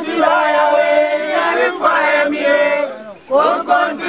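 A group of people chanting together in sung phrases, with a short break about three seconds in.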